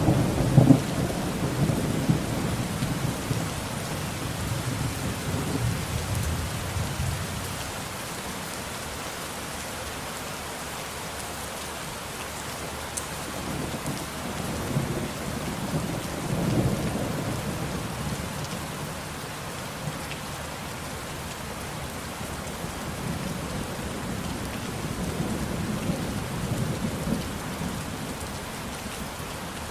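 Steady rain with rolling thunder: a loud rumble at the start dies away over several seconds, and fainter rumbles swell around the middle and again near the end.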